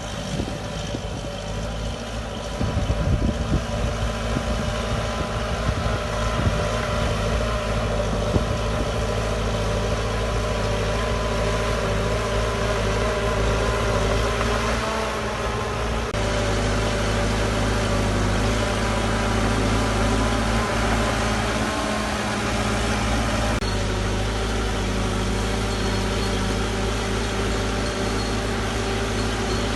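Heavy diesel engine of earthmoving machinery running steadily, with knocking and clattering from about two to five seconds in and a shift in the engine note about halfway through.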